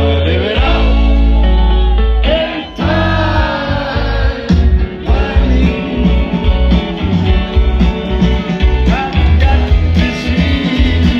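Music with singing, guitar and a heavy bass beat.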